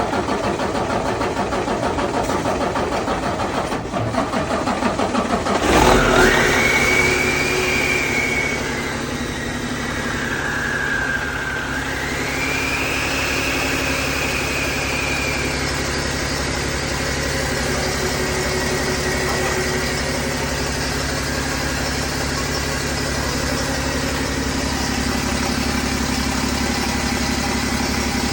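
Cummins ISX15 inline-six diesel in a Peterbilt 389 being cranked for several seconds on its first start after an overhaul, then catching. A high whine rises, dips and rises again before fading, and the engine settles into a steady idle.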